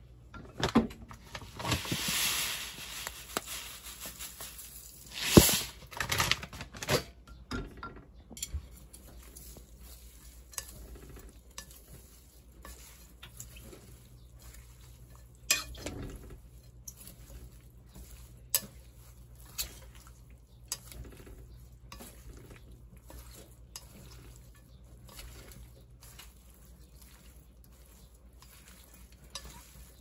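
Wooden chopsticks tossing shredded vegetables and chives with red pepper flakes in a glass mixing bowl: rustling of the vegetables and scattered light clicks of the chopsticks against the glass. A louder rustle fills the first few seconds, and a sharp knock about five seconds in is the loudest sound.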